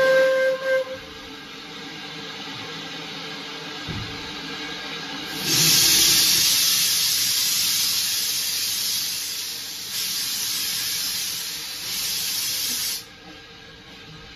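A short steam whistle blast at the very start, then narrow-gauge steam locomotive 'Lyn' (No. 762) moving off with steam blowing from its open cylinder drain cocks: a loud hiss for about seven seconds that cuts off suddenly near the end as the cocks are closed.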